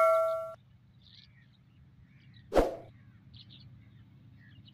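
The tail of a bell-like 'ding' sound effect from a subscribe-button animation rings and cuts off about half a second in, and a short whoosh comes about two and a half seconds in. After it, faint bird chirps sound over a low steady rural background.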